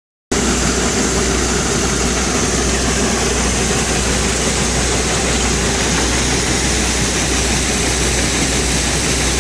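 Large farm machine's engine running steadily, with a constant hiss of mechanical noise over a low, even drone. It starts abruptly a fraction of a second in.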